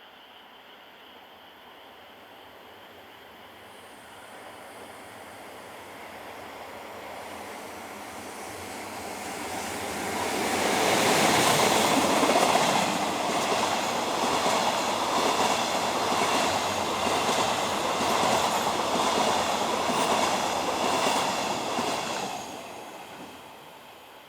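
ED75 electric locomotive hauling a long-rail train of flat wagons passing by. It grows louder over about ten seconds, then the wagon wheels clatter over the rail joints in a steady rhythm for about ten seconds before the sound falls away quickly near the end.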